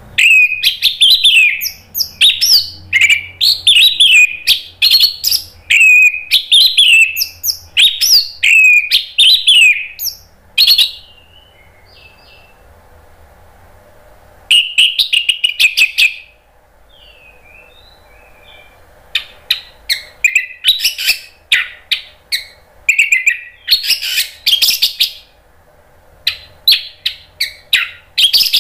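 Orange-headed thrush singing loud, quick runs of varied whistled phrases in full song. There are two pauses of a few seconds, about a third and two thirds of the way through.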